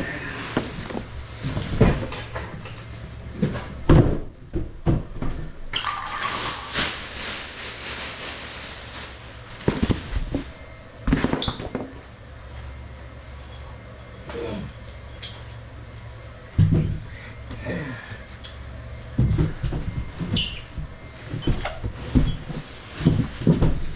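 A cardboard water heater box being cut on an angle and handled: scattered knocks and thumps of the box being moved, with a stretch of scraping and tearing cardboard about six to nine seconds in. A steady low hum runs underneath.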